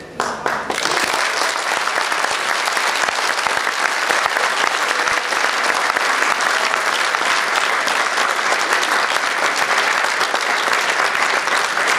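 Audience applauding, starting abruptly and holding steady as dense, even clapping.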